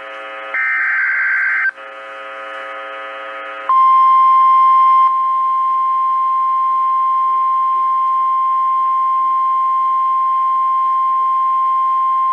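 Emergency Alert System alert heard over a NOAA Weather Radio receiver: warbling SAME digital header data bursts for the first few seconds, then the steady single-pitch 1050 Hz weather radio warning alarm tone, held to the end. It signals that a new weather warning is about to be broadcast.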